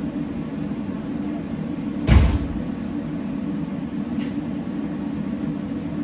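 A dull, heavy thump about two seconds in, a homemade pizza dropped onto the concrete shop floor, over a steady background hum.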